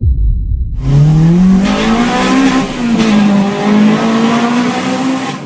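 A car engine: a low rumble, then about a second in the revs climb steadily and hold high, wavering a little, before fading near the end.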